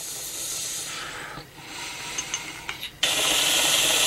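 Hit from a glass water bong: a hissing rush of air drawn through the bong in two pulls, then a much louder, steady draw starting suddenly about three seconds in.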